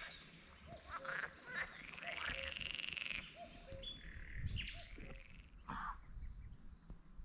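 Frogs calling in short low notes, with birds singing over them and a high rapid trill repeating through the second half.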